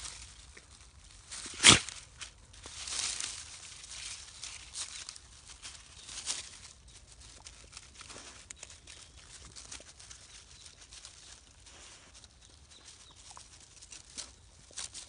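Dry fallen leaves rustling and crackling as a Jindo dog noses and steps through them, sniffing. A sharp crackle comes about two seconds in, then softer scattered rustles and ticks.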